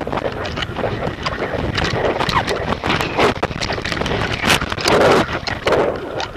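Wind buffeting the microphone of a small action camera carried aloft on a kite, a loud rushing with dense rapid crackles and rattles, surging louder a few times midway.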